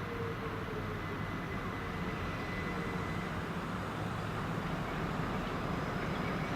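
Soviet M62 diesel locomotive, its two-stroke V12 diesel engine running with a steady low drone and a rushing hiss, slowly growing louder as it approaches.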